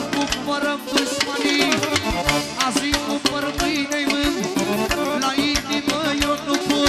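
Live manele band music: an ornamented melody over a steady drum beat with regular percussion hits.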